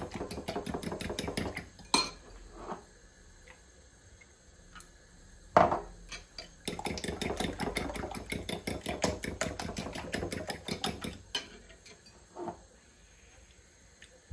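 A fork beating eggs in a ceramic bowl: rapid clinks of metal against the bowl in two spells, with a few louder single knocks in between.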